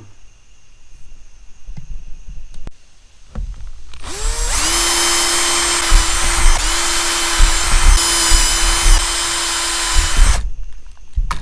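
A power drill spins up about four seconds in and runs steadily for about six seconds, easing off briefly twice before stopping suddenly. It is drilling a row of holes through a panel to perforate the outline of a square cutout. A few light knocks of handling come before it.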